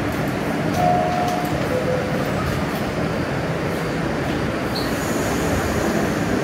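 New York City subway train running on the track, a steady rumble of wheels and motors with brief faint wheel squeals about a second in.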